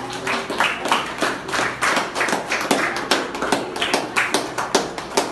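A group of people clapping together in a steady rhythm, about three claps a second.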